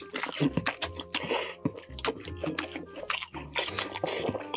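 Close-miked wet, squishy eating sounds: moist roast meat being pulled apart by hand and chewed, with many small sticky clicks and lip smacks.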